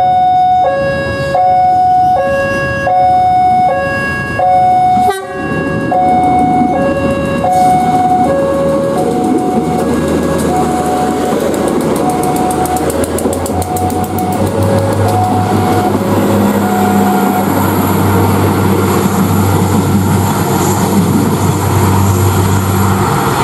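Electronic two-tone warning alarm alternating high and low about twice a second, as at a closed level crossing; it fades and stops about nine seconds in, with a sharp click a little before. Then a diesel commuter train's engine rumble builds and runs steadily as the train passes.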